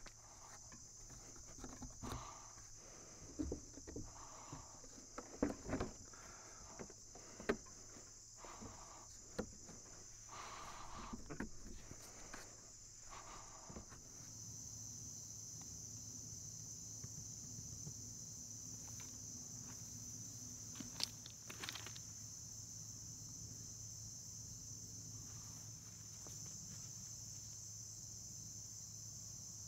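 Steady high-pitched chorus of insects, with scattered faint knocks and footsteps during the first half.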